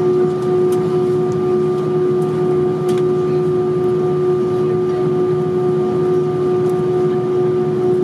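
Steady cabin noise inside an Airbus A320 with its engines running: an even rumble under a constant hum-like tone, with a couple of faint ticks.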